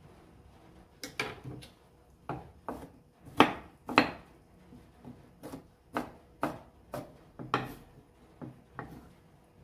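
Kitchen knife slicing peeled eggplant and knocking on a wooden cutting board: a run of short chops, about two a second, the loudest a few seconds in.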